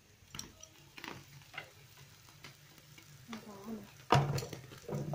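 Strips of fish cake frying in a pan, stirred with a utensil that clicks and scrapes against the pan, with a loud knock about four seconds in.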